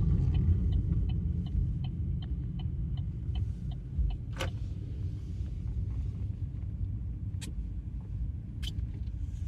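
A motor vehicle's low, steady rumble, fading gradually, with a fast even ticking over the first few seconds and a few sharp clicks later.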